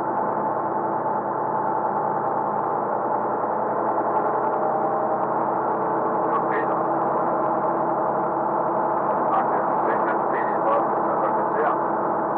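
Truck engine running at a steady speed, a continuous drone of several held tones, with a few short ticks in the second half.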